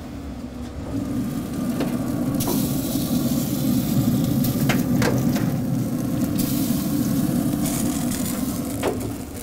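Pit Boss Sportsman pellet grill running at 350 degrees with its lid open: a steady rush of the fan and burning pellets that rises about a second in and eases near the end as the lid comes down. A few sharp metal clinks come from the roasting pan being lifted off the grates.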